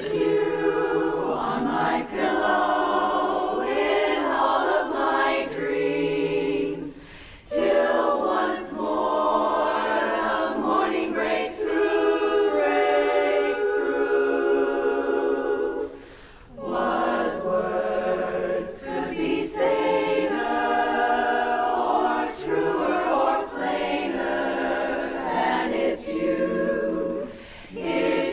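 Women's barbershop chorus singing a cappella in close four-part harmony, in sustained phrases with short breath pauses between them.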